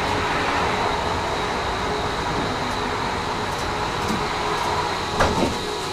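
Tram running along the track: steady running noise with a thin high whine held throughout, and a couple of sharp knocks near the end.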